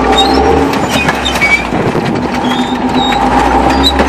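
Tracked military tank driving slowly away from a crushed car: a steady engine drone and low rumble, with the steel tracks clattering and giving short high squeaks.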